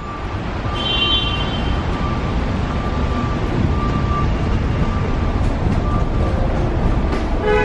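Steady rumble of a New York subway train, with a thin high tone coming and going over it.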